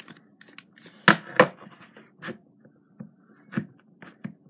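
Crazy Aaron's Thinking Putty and its tin being handled: scattered sharp clicks and knocks, the two loudest close together about a second in, with a few fainter ones after.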